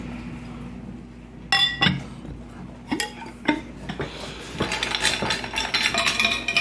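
Boiled quail eggs clicking and rattling inside two bowls held rim to rim, shaken to crack the shells for peeling. A few separate knocks come first, then a dense, continuous clinking from about four and a half seconds in.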